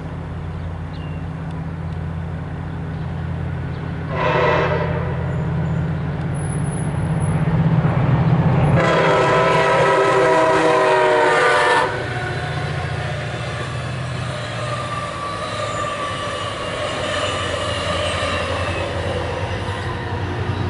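MARC commuter train's horn sounding for a grade crossing: a short blast about four seconds in, then a louder blast lasting about three seconds, over a steady low rumble as the train approaches.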